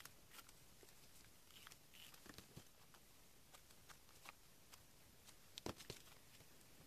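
Faint rustling of paper being handled and cut with scissors, with scattered light clicks and two sharper clicks a little before the end.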